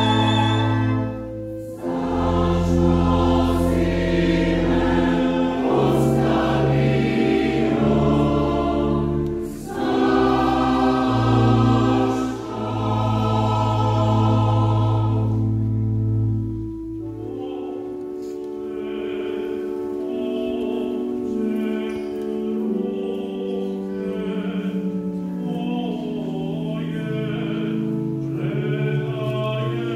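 Choir singing a sacred cantata with organ accompaniment: loud, full sustained chords over deep held bass notes, then growing softer a little past halfway as the lowest notes drop away and the choir carries on more quietly over held chords.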